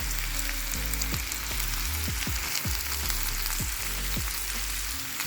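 Minced meat and onion sizzling in olive oil in a frying pan: a steady, even frying hiss with scattered light knocks.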